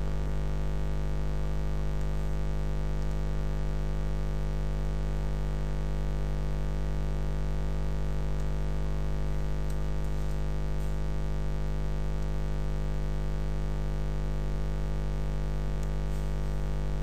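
Steady electrical hum and buzz with many overtones, unchanging throughout, the kind a microphone picks up from mains interference, with a few faint clicks.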